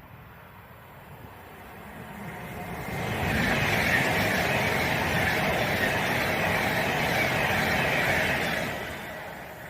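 Class 390 Pendolino electric train passing through the station. Its rushing noise builds over about a second, holds steady and loud for about five seconds, then fades near the end.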